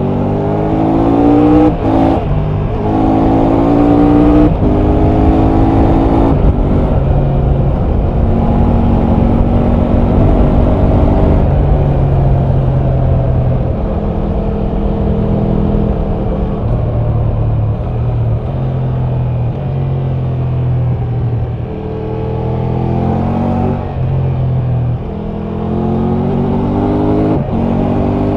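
Triumph Tiger 1200's three-cylinder engine and exhaust pulling hard through the gears, the pitch climbing and dropping back at three quick upshifts in the first several seconds. It then runs steadier at cruising speed before climbing through more gears near the end.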